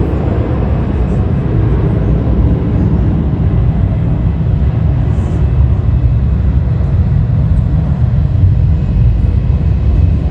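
Jet airliner engines giving a loud, steady, deep rumble, with a faint thin whine coming in over the second half.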